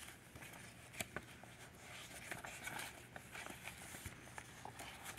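Loose sheets of thin printed paper rustling and crackling faintly as they are leafed through by hand, with a sharper crackle about a second in.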